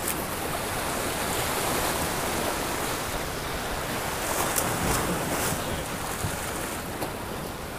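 Sea waves washing and surging against jetty rocks in a steady rush.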